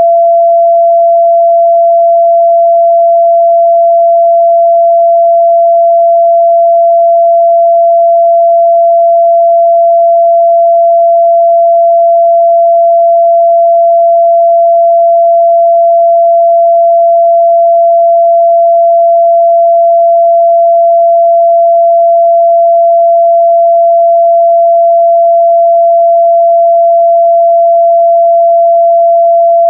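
Continuous 678 Hz pure sine test tone, loud and unchanging in pitch and level.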